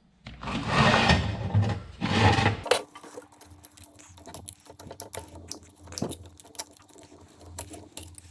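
Hand work on a chainsaw's fuel system. A couple of seconds of louder rustling and scraping, then scattered light clicks and taps of small parts being handled over a faint steady hum.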